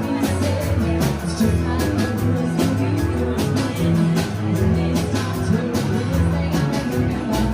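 Rock-and-roll music with guitar, bass, drums and a singing voice, playing at a steady beat.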